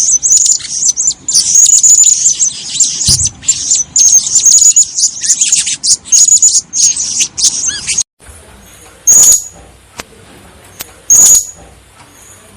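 Blue-crowned hanging parrot (serindit) calling: a fast run of high, thin chirps, then after an abrupt break, single sharp high calls about every two seconds.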